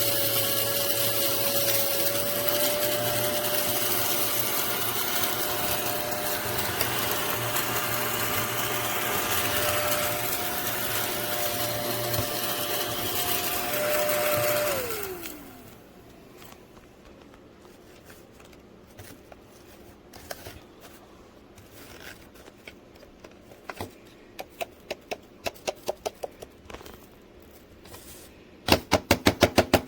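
Small motor of a mini desktop vacuum cleaner running with a steady high whine, then switched off about halfway through, the whine falling as the motor spins down. Afterwards there are scattered light clicks, and near the end a fast run of sharp clicks.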